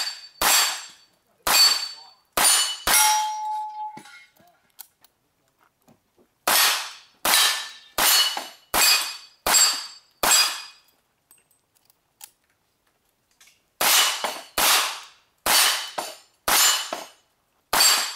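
Revolver shots fired in rapid strings, roughly one shot every 0.7 s, in three bursts separated by pauses of a few seconds. A steel target plate rings briefly after a shot about three seconds in.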